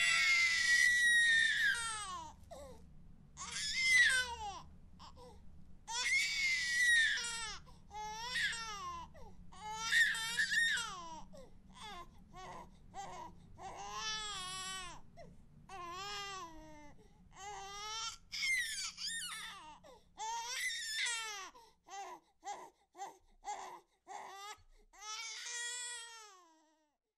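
Baby crying: a string of short cries, each rising and falling in pitch, with brief gaps between them. The cries grow fainter toward the end.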